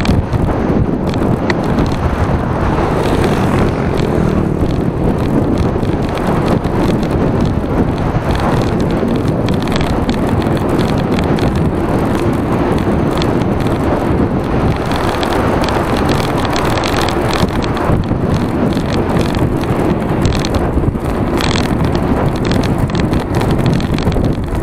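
Steady wind rush on an action camera's microphone while riding a bicycle, mixed with the hum of the tyres on the road and a few faint ticks.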